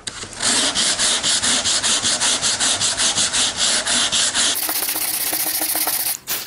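A hand sanding block with coarse sandpaper is scrubbing back and forth over cured Bondo body filler on a wood repair, levelling a mound of excess filler. The rasping strokes come about four or five a second, then blur into a steadier scrub near the end and stop suddenly.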